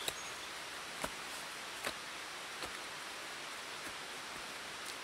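Small hatchet chopping into soil at the base of a burdock plant to dig out the root: about six sharp strikes, roughly one a second, over a steady background hiss.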